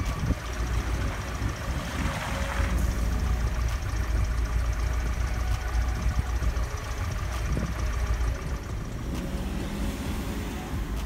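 Off-road vehicle's engine running with a steady low rumble, with a brief hiss about two seconds in.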